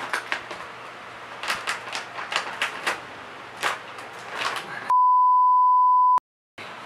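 Clear plastic snack bag crinkling in short crackles as it is handled and opened with a box cutter, then a loud single-tone censor bleep for over a second that cuts off abruptly into dead silence.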